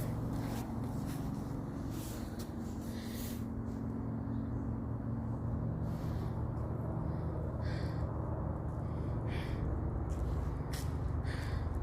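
A steady low mechanical hum, with a few faint, brief scuffs in the last few seconds.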